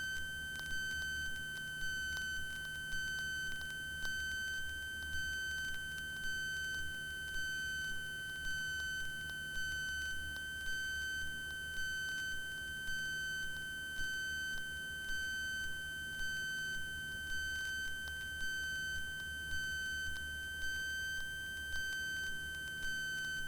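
A steady, unbroken high-pitched electronic tone, like a held beep, over a faint low drone.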